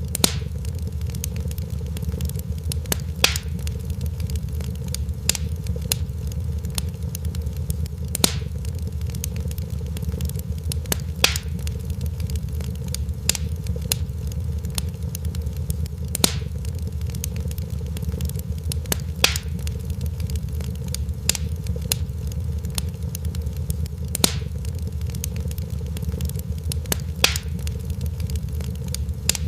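Fireplace fire crackling over a steady low rumble, with a sharp pop every one to three seconds. The pattern of pops repeats about every eight seconds, like a looped recording.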